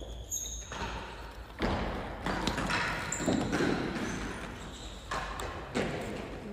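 Real tennis rally: the hard ball struck by rackets and bouncing off the court's walls, floor and penthouse roof. About six sharp knocks, each ringing out in the hall's long echo.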